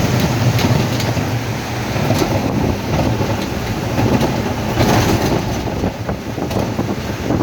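Steady low rumble of a moving vehicle, with a few sharp clicks scattered through it.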